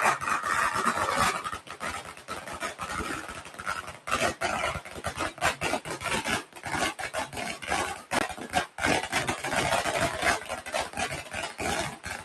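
A long string of Chinese firecrackers going off in rapid, irregular cracks, thinning out a little about a second in and stopping suddenly near the end.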